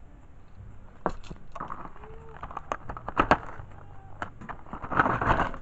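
Irregular clicks and short rustling bursts of objects being handled, loudest just past three seconds and again about five seconds in.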